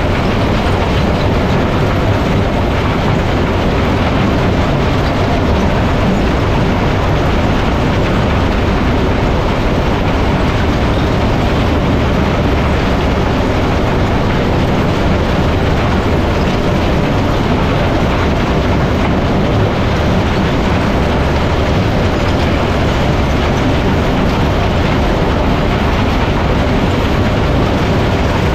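Crushed limestone pouring from the discharge of a Metso 130 jaw crusher onto the conveyor belt beneath it, with the crusher running: a loud, steady, dense rumble of falling rock.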